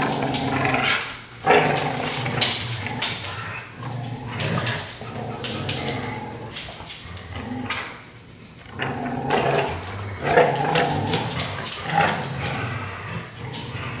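Dogs growling and snarling in play as they wrestle and tug over a Kong toy, with a continuous rumbling growl that dips briefly about eight seconds in before picking up again.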